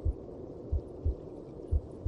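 A mother's heartbeat as heard from inside the womb: deep lub-dub double beats, about one pair a second, over a steady whooshing.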